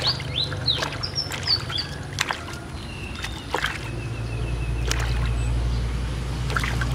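Soapy water splashing and sloshing in a plastic basin as hands wash a baby monkey, with a few high chirps in the first couple of seconds. From about four seconds in, a low steady engine-like drone builds underneath.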